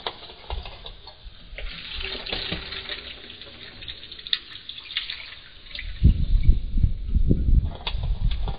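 Ducks dabbling with their bills in a shallow water tub: water sloshing and splashing with small drips and clicks. From about six seconds in, a run of loud low thumps and knocks.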